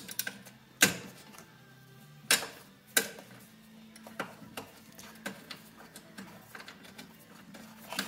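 Small hand ratchet with a 5/16 socket clicking in short runs as a bolt is turned, with three sharper knocks of tool on metal about one, two and three seconds in.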